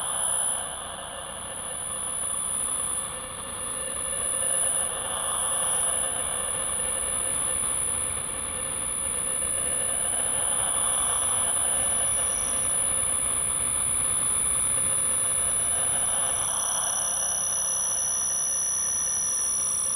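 Live electronic sound-art drone: sustained high whistling tones over a hazy band of noise that swells and fades every five or six seconds, with a further high tone joining about halfway through.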